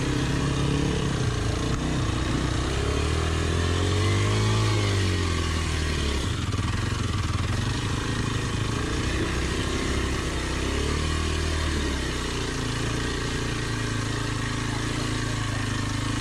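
Dirt bike engine running at idle, revved up and back down about three seconds in, then given a smaller blip of throttle around ten seconds in.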